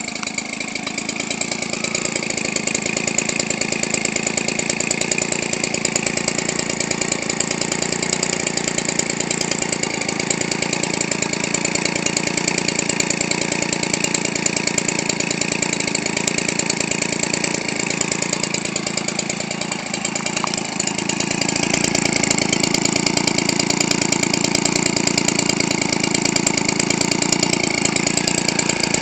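Weedeater Featherlite 17cc two-stroke trimmer engine, converted for radio-control aircraft, idling steadily on a test stand. It gets a little louder about three-quarters of the way through.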